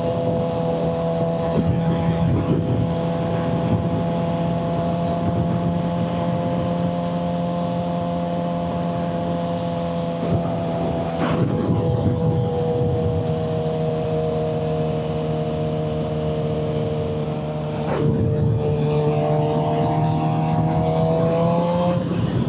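Suzuki GSX-R600 motorcycle's inline-four engine running at a steady pitch. Its note dips slightly twice, each time with a brief click, and climbs a little near the end.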